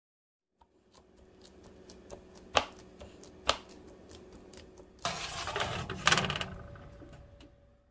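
Kitchen clatter: small clicks and clinks of utensils against cookware, two sharp knocks, then about a second and a half of dense rattling and scraping about five seconds in.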